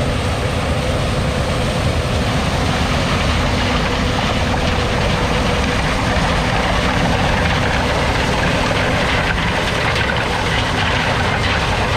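Combine harvester running steadily while harvesting corn: a constant loud mechanical noise, with a faint steady hum that fades about halfway through.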